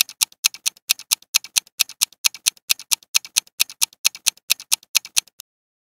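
Clock-ticking countdown sound effect: fast, even ticks, about four a second, alternating louder and softer, that stop suddenly near the end as the answer time runs out.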